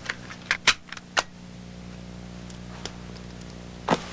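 Sharp clicks from handling a portable cassette player and pressing its buttons: four in the first second or so, then single clicks near the end. Under them, from about a second in, a steady low hum.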